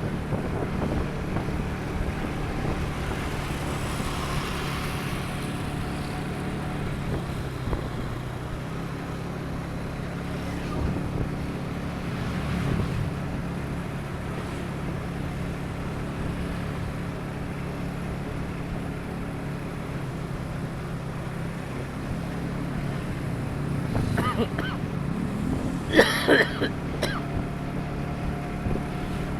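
Motorcycle riding along a road: a steady engine hum under wind rushing over the microphone. There is a brief, louder sound about three seconds before the end.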